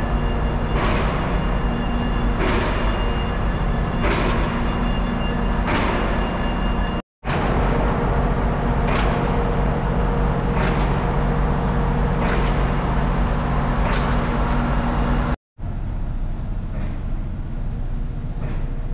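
Northstar commuter train's diesel locomotive running with a steady hum, with a hissing swish repeating about every second and a half to two seconds. The sound cuts out abruptly twice.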